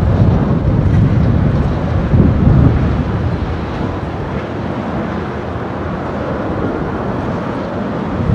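Boeing 777-200ER's twin jet engines rumbling as the airliner rolls out along the runway after landing. It is a steady deep noise that eases off a little after about three seconds.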